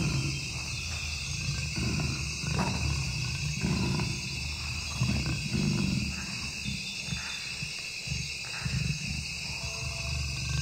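Recorded wild-animal soundscape: deep, rough animal calls repeat irregularly over a steady, high-pitched insect-like chorus.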